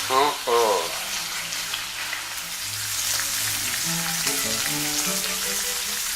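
Food frying in a hot pan: a steady sizzle, under background music.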